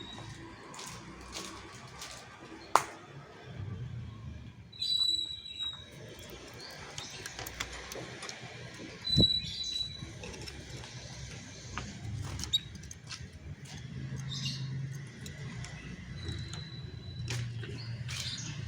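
Canary giving a few short, high chirps, with sharp clicks and knocks from its cage; the loudest click comes about three seconds in.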